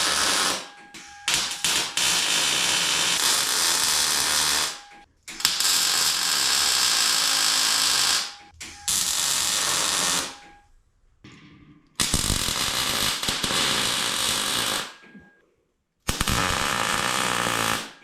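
Wire-feed welder's arc crackling in a series of short welds, tacking expanded metal down to a steel shelf frame: about six bursts of one to four seconds each, with brief pauses between.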